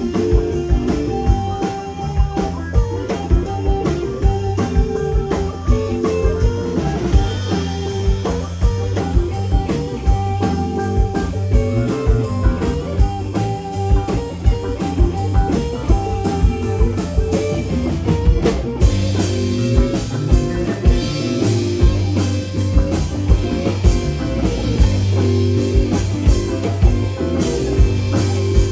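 Live rock band playing an instrumental jam: electric guitar lead over bass, acoustic rhythm guitar and a drum kit keeping a steady beat. The cymbals get brighter about two-thirds of the way through.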